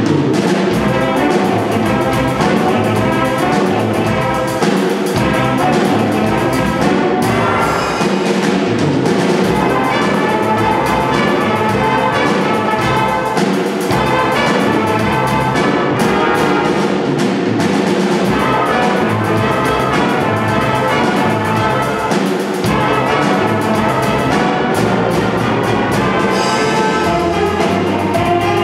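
Student jazz big band playing in full ensemble: trumpets, trombones and saxophones together over a swinging drum kit, loud and without a break.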